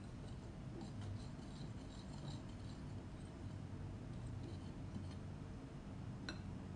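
Wire whisk stirring dry flour and cocoa powder in a glass bowl: faint scratchy scraping and light ticks of the wires against the glass, with one sharp click near the end.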